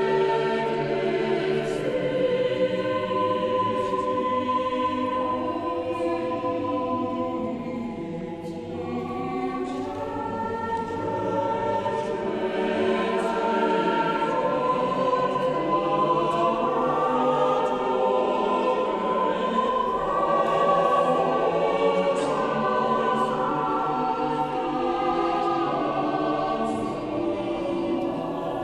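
Mixed choir singing sacred choral music in a church, many voices in sustained harmony, dipping slightly in level about eight seconds in.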